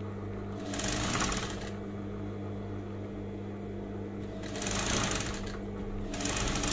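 Industrial sewing machine stitching fabric in three short runs of rapid needle ticking, about a second in, past the middle, and near the end. A steady motor hum continues between the runs.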